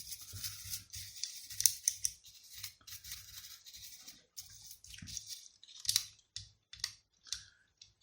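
Light scratching and scraping of small plastic Xbox controller parts being handled and worked by hand. In the second half it breaks into a run of short separate scrapes, about one or two a second.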